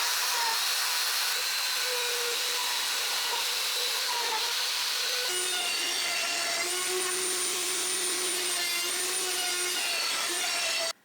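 A woodworking power tool's motor running steadily with a hissing whine. Its pitch and sound change about five seconds in, and it cuts off suddenly near the end.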